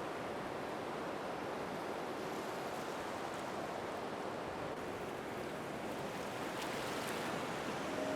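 Ocean surf washing in a steady hiss, slowly swelling a little louder near the end.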